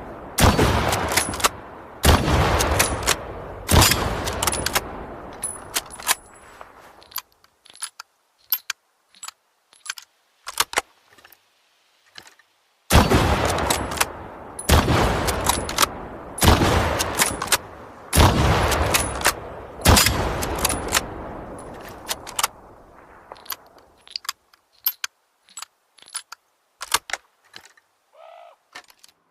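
Mosin-Nagant 'three-line' rifle firing: two strings of loud shots about every second and a half to two seconds, each shot followed by a long fading echo. Between the strings come quieter metallic clicks and clatter, the rifle's action being worked and reloaded.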